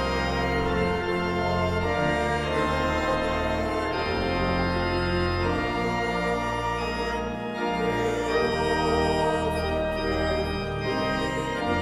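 Church organ playing sustained hymn chords over a moving bass line.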